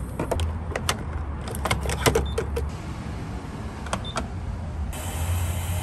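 Refuelling at a gas pump: clicks and clunks as the car's fuel filler and the pump nozzle are handled, with a short beep as the fuel-grade button is pressed about four seconds in. A steady hiss sets in suddenly about a second later.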